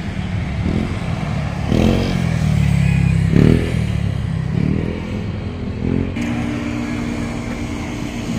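Street traffic: a steady low engine rumble with motorcycle engines revving up and passing several times.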